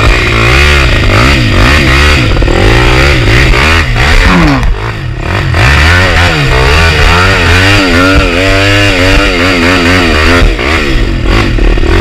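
Dirt bike engine revving hard in repeated bursts, its pitch rising and falling over and over as the bike is worked up a rutted trail. The revs drop briefly about four to five seconds in, then pick up again.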